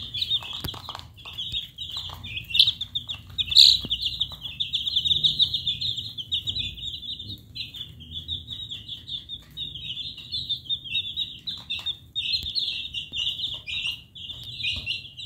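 A flock of baby chicks peeping continuously in a dense, overlapping chorus of high, rapid peeps, with a few light taps.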